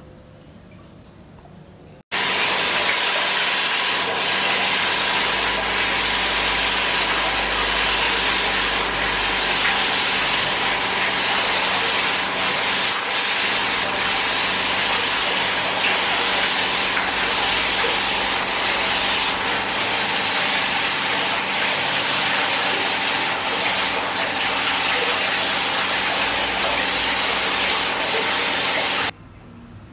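Gravity-feed paint spray gun hissing steadily as compressed air atomises paint onto a metal motorcycle fuel tank, with a steady hum underneath. It starts abruptly about two seconds in and cuts off abruptly near the end.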